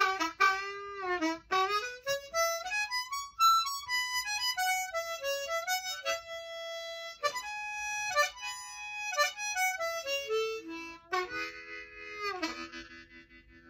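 Hohner Crossover diatonic harmonica played solo. A line of single notes with bends near the start climbs up the scale, then steps back down, ending on held chords.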